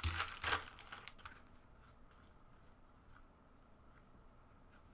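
Trading-card pack wrapper crinkling and rustling for about the first second, then faint light taps as the cards are handled.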